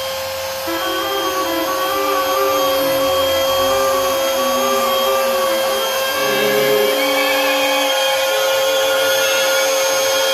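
Small CNC machine running: a steady motor hum and hiss, with the stepper motors whining at pitches that shift in steps as the axes move.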